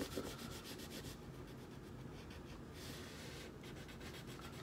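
Red wax crayon rubbed back and forth across paper, coloring in a flag stripe. Quick, scratchy strokes at first, lighter in the middle, then picking up again near the end.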